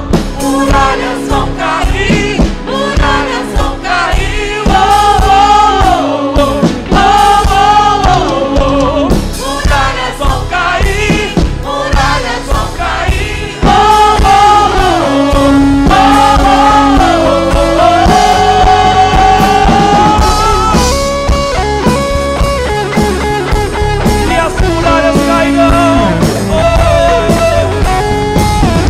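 Live worship band playing a rock-style gospel song without words: a wavering, bending lead melody with a long held note about two-thirds of the way in, over drums, bass and guitars.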